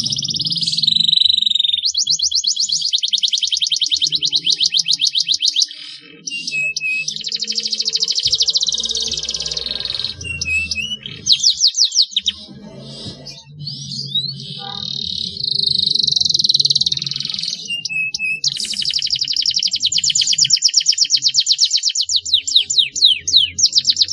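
Domestic canary singing fast, high-pitched rolling trills in phrases of a few seconds broken by short pauses, ending in one long unbroken trill over the last five seconds. This is canary song of the kind played to prompt other canaries into singing.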